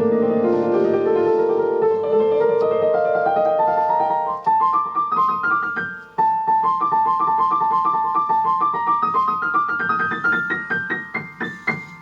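Keyboard playing in a piano sound: held chords, then from about four seconds in a long run of notes climbing steadily higher in pitch.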